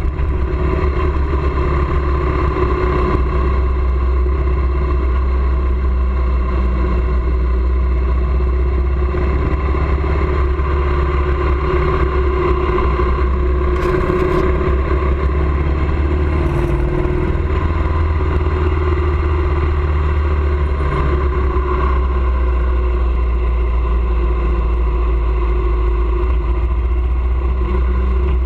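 Vehicle travelling on the road: a steady, loud, low rumble of engine and road noise, with a couple of brief clicks about halfway through.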